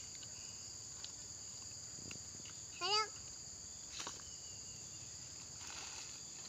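Faint, steady high-pitched drone of insects, with a few light knocks and one short voice-like call that bends up and down about three seconds in.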